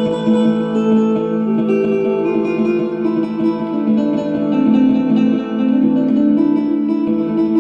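Background music: a plucked guitar playing steadily.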